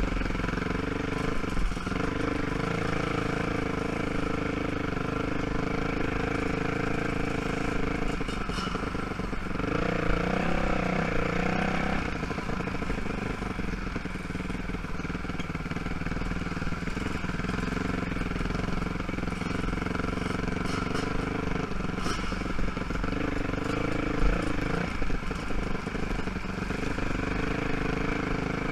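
ATV (quad) engine running steadily at low revs on a slow trail ride, the revs rising briefly about ten seconds in. A few short knocks or clatters come through now and then.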